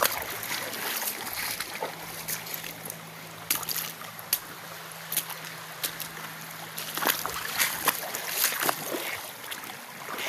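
Creek water sloshing and splashing, with scattered sharp splashes throughout, over a faint steady hum that stops about eight seconds in.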